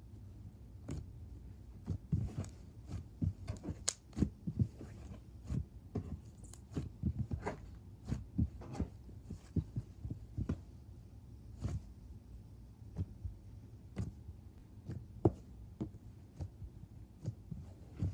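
Thick cornstarch slime being squeezed, pressed and poked by hand, giving irregular soft clicks, pops and low thuds, several a second.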